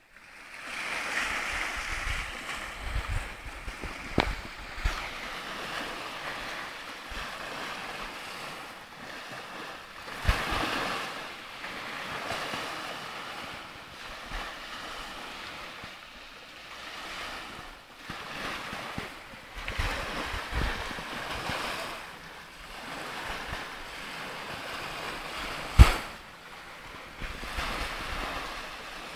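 Small waves breaking and washing up a pebble beach, swelling and falling every several seconds, with wind buffeting the microphone. A sharp click stands out about 26 seconds in.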